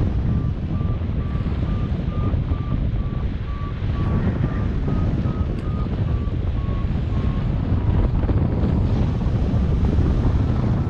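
Steady wind rushing over the microphone in flight, with a flight variometer beeping about twice a second. The beep pitch rises slowly and then falls again, and the beeps fade out near the end, following the climb rate while circling in a thermal.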